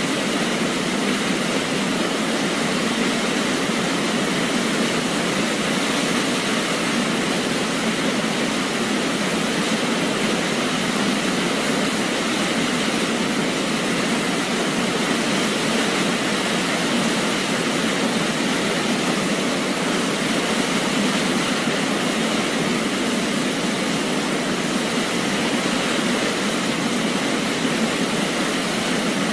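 Waterfall: falling water rushing steadily and evenly, with little deep rumble.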